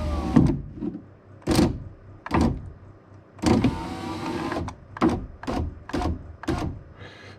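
Saab 9-3 rear door power-window motor running the glass in two short runs, one right at the start and a longer one a few seconds in, its whine shifting in pitch. Sharp clicks and knocks sound between the runs.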